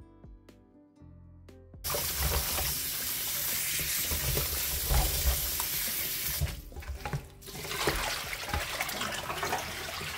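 Kitchen tap running into a stainless-steel sink, water splashing over vegetables in a plastic bowl as hands rub them clean. The water starts suddenly about two seconds in, drops back briefly past the middle, then runs again.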